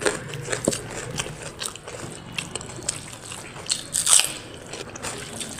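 Close-miked eating: a person biting and chewing a mouthful of rice with dal and mashed potato, many short wet clicks and crunches, with one louder crunch about four seconds in.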